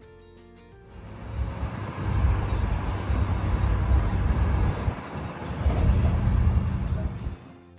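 A vehicle running with a loud, uneven low rumble and hiss, starting about a second in and cutting off suddenly near the end; soft background music plays before and after it.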